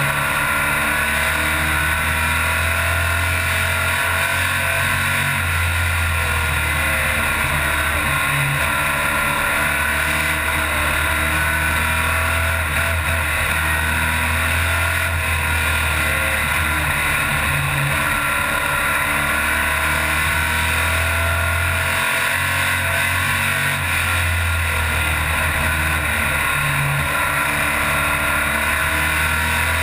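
Stock race car engine running hard, heard from inside the cockpit over rattling and road noise. Its low note dips and rises every few seconds as the throttle comes off and back on around the short oval.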